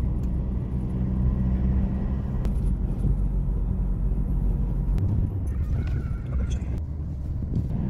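Steady engine hum and road rumble inside a moving car's cabin.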